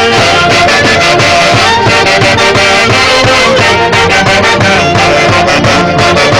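Loud band music in the Huancayo 'Santiago' style: wind instruments carrying the melody over a steady, quick drum beat.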